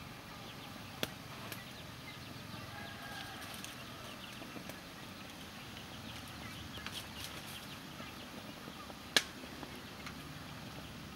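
A metal spoon clicking against the aluminium steamer tray while stirring rice: a light click about a second in and a louder one near the end, over a steady outdoor background with scattered faint chirps.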